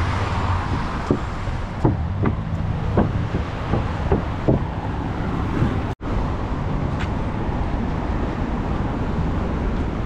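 Steady rumble of road traffic, with footsteps knocking on wooden boardwalk planks about twice a second in the first half. The sound drops out for an instant about six seconds in.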